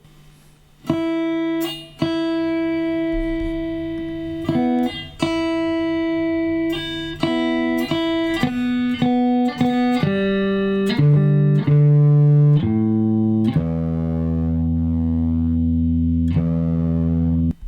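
Instrumental music: a slow melody of single held notes that change about once a second, beginning after a brief pause, with a deep bass note in the last few seconds.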